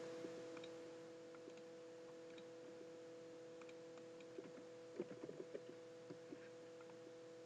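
Faint computer keyboard keystrokes and mouse clicks as values are typed into software fields, with a quick run of about half a dozen taps about four and a half to five and a half seconds in. A faint steady hum runs underneath.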